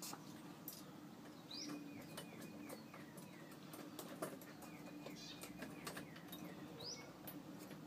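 A bird singing faintly: two short phrases a few seconds apart, each a quick rising note followed by a run of short falling notes. Light clicks and a low steady hum lie underneath.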